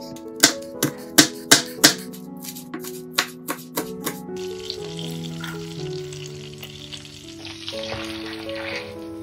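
A chef's knife chopping spring onion on a bamboo cutting board, a quick uneven run of sharp chops. About four seconds in, this gives way to the chopped onion sizzling in a frying pan as it is stirred with a spatula.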